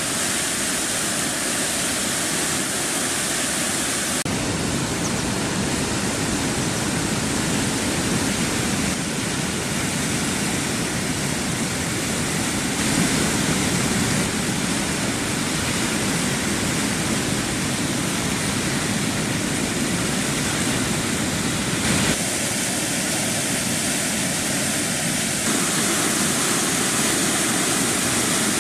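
Swollen river in flood: a steady rushing of fast, churning floodwater, changing abruptly about four seconds in and again a little past twenty seconds.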